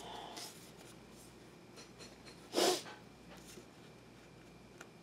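Faint rustles of tarot cards being handled, broken about two and a half seconds in by one short, loud snort-like breath through the nose.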